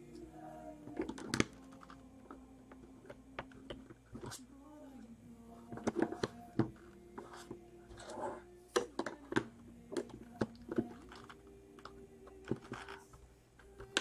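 Plastic LEGO bricks clicking and clattering in irregular taps as pieces are picked through and pressed together, over soft background music.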